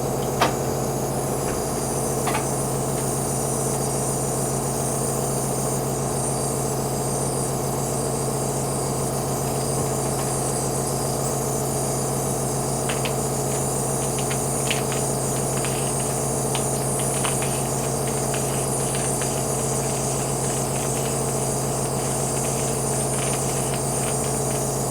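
Nebulizer compressor running steadily, a constant low hum with a hiss of air and mist over it, during a breathing treatment. A few faint clicks come in around the middle.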